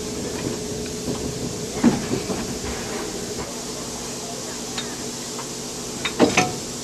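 Steady hum of a standing narrow-gauge steam locomotive while it is coupled to a coach. A metal clank comes about two seconds in, and a louder pair of clanks near the end, as the coupler and hoses are handled.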